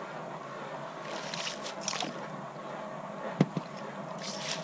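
Water and slush sloshing in a freshly drilled ice-fishing hole, with one sharp knock about three and a half seconds in.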